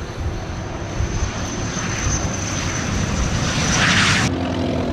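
Jet engine of a Douglas A-4 Skyhawk passing low along the runway: a steady high whine over a rumble that grows louder, then cuts off suddenly about four seconds in.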